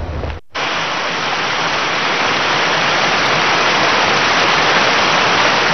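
Fast-flowing muddy floodwater rushing past as a steady, dense hiss. It starts abruptly after a brief break about half a second in and grows slightly louder.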